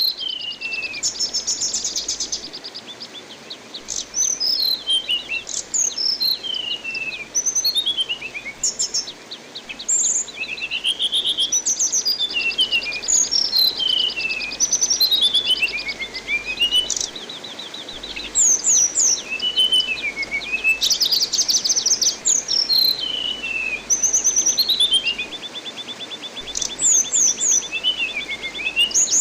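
Anis binbin thrush singing continuously, mixing fast rattling trills with whistled phrases that slide steeply down in pitch. Under the song runs a steady hiss of running water.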